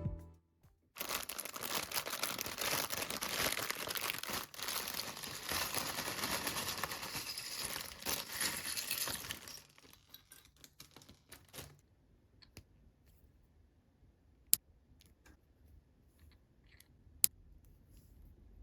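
Plastic LEGO parts bag being torn open and crinkled: a dense rustling for about eight seconds. Then come a few faint clicks and two sharp clicks of pieces near the end.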